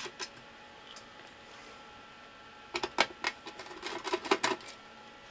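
Small clicks and taps of parts being handled on a workbench: one click at the start, then a quick cluster of clicks and knocks about three seconds in.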